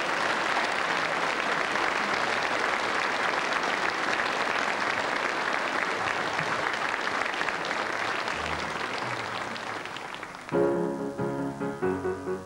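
Studio audience applauding, slowly dying away. About ten and a half seconds in, a band starts playing, with keyboard chords in short repeated strokes.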